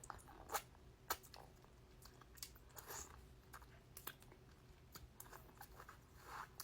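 Quiet chewing and gnawing on meat from the bone: a scattered run of short wet mouth clicks and small crunches, the loudest about half a second and a second in.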